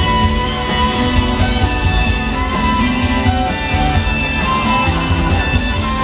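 Live rock band playing: electric guitars over drums and bass.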